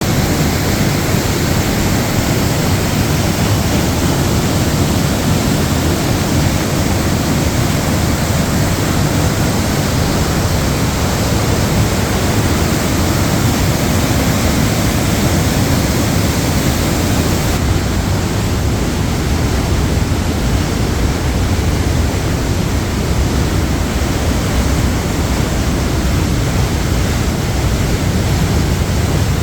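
Waterfall: a steady, loud rush of falling water, heaviest in the low end.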